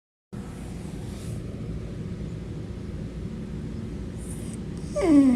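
A steady low rumbling background noise, then about five seconds in a cat meows once, the call falling in pitch.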